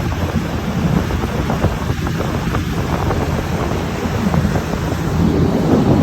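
Wind buffeting the microphone with a steady low rumble, a little stronger near the end.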